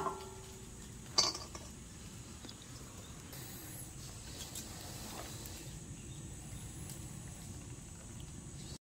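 Purple hull pea pods being shelled by hand over a stainless steel bowl: two sharp metallic clinks at the start and about a second in, then quiet handling of the pods against a faint outdoor background. The sound cuts off suddenly near the end.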